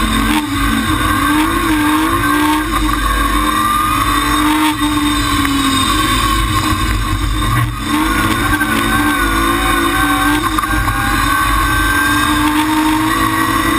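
BMW Compact M3ti rally car's engine heard from inside the cabin at stage pace, its revs rising and falling steadily with brief dips where the driver lifts, the clearest a little under eight seconds in.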